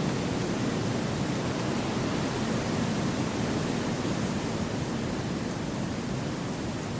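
Steady wind noise, a dense even rush with slight slow swells and no other events.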